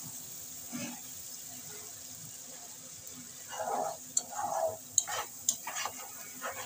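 Onion-tomato masala with ground spices and a splash of water sizzling steadily in a kadai. From about three and a half seconds in, a spatula scrapes and stirs through it, with a few sharp taps of the spatula against the pan.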